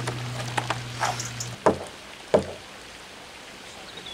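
A few short knocks and thumps close to the microphone, the two loudest about a second and a half and two and a half seconds in. A low steady hum cuts off suddenly just before the first of these.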